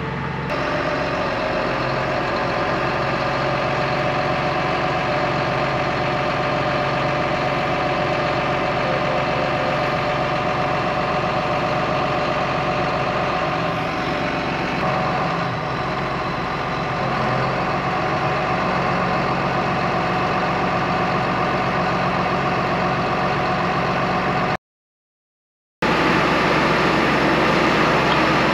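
Tractor engine running steadily, heard from inside the cab, while its hydraulics work the field cultivator's wing-fold cylinders. A higher steady whine over the engine grows stronger about halfway through. The sound cuts off abruptly near the end.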